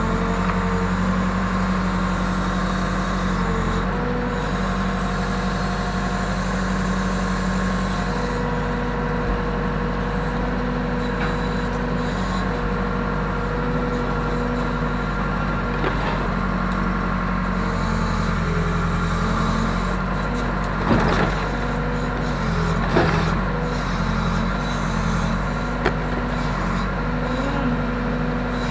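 Case 580K backhoe's diesel engine running under working load, its pitch stepping up and down as the machine is worked. A couple of short knocks come about three-quarters of the way through.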